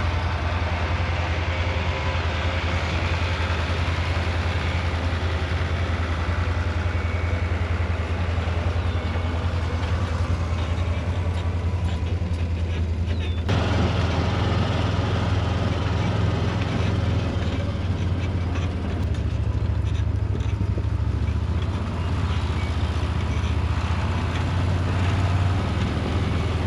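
Tractor engine idling steadily, with a sudden step up in level about halfway through.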